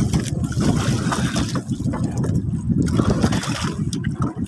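Sea water sloshing and gurgling against the hull and bamboo outriggers of a small outrigger fishing boat, over a steady low rumble.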